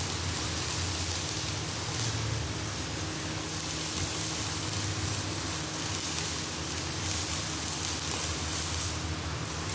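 Two arc welders working at once on a truck bed's checker-plate floor: a steady welding hiss, with a low hum underneath.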